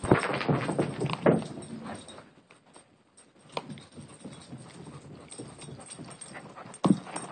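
A dog's feet running during a game of fetch: quick clicks and thumps of paws and claws, busiest at the start and again near the end, quieter in the middle.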